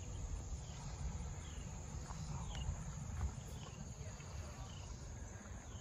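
Outdoor insect chorus: a steady faint high buzz with short falling chirps repeating about every half second, over a low rumble.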